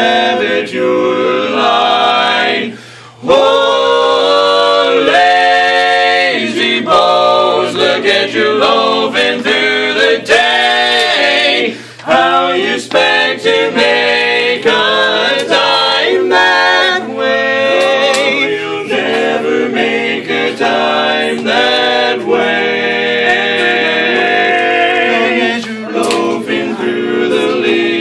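Four-man barbershop quartet singing a cappella in close harmony, with held chords. There are short breaks about three seconds in and again about twelve seconds in.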